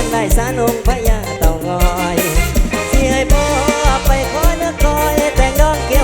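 Mor lam band playing a fast toei dance tune: a heavy kick drum on a steady beat under a thick bass line, with a bending melodic lead over the top.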